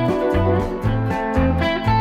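Background music led by plucked guitar over a bass line, notes changing several times a second.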